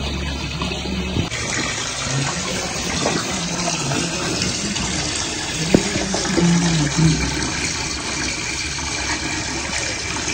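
Water gushing and churning as it is pumped into a burrow, frothing up as the hole floods.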